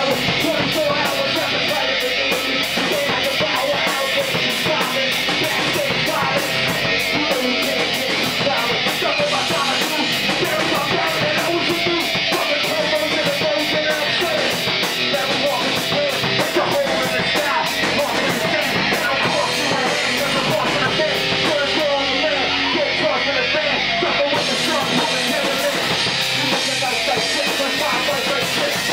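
Live rock band playing loud, with electric guitar and a drum kit, the cymbals struck about four times a second. The cymbals drop out for a couple of seconds about twenty-two seconds in.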